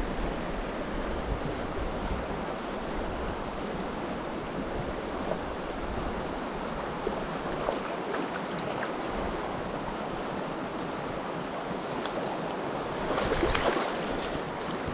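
Creek current rushing steadily over a shallow riffle, with a brief louder surge of water noise about thirteen seconds in.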